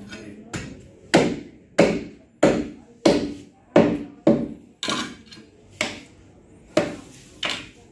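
Butcher's cleaver chopping raw meat on a wooden log chopping block: about a dozen sharp, evenly paced blows, roughly one every half-second, growing softer toward the end.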